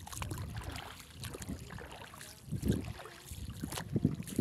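Wind buffeting the microphone in uneven low gusts, the strongest about two and a half and four seconds in, over light splashing and lapping of shallow seawater.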